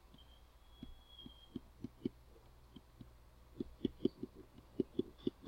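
Stylus tapping and knocking on a tablet screen during handwriting: soft, irregular taps that come closer together after about three and a half seconds, over a faint low hum.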